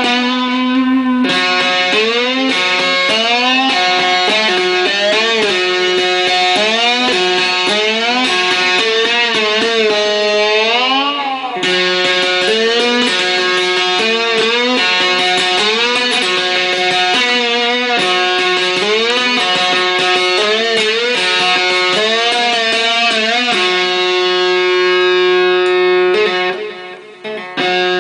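Homemade three-string electric instrument (a diddley-bow-style wooden plank) heard through its hand-wound pickup, its strings plucked. Notes glide up and down in pitch over a steady low drone, with a short break near the end.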